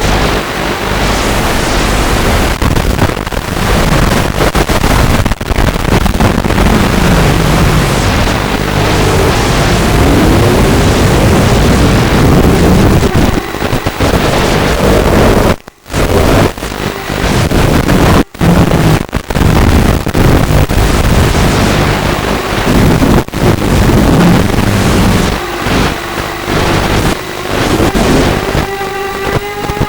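Walkera F210 FPV racing quadcopter's motors whining in flight, their pitch rising and falling with the throttle, under heavy wind rush on the microphone. The sound cuts out twice, briefly, about halfway through.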